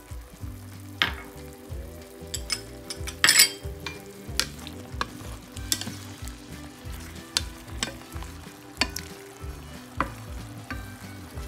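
Squid pieces sizzling in a frying pan while a wooden spatula stirs them. The spatula scrapes and knocks against the pan every second or so, loudest in a cluster about three seconds in.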